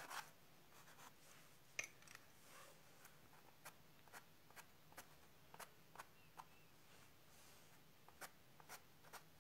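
Coloured pencil flicking short strokes on toned paper to draw eyelashes: faint, sharp scratchy ticks about two a second, pausing briefly near the end.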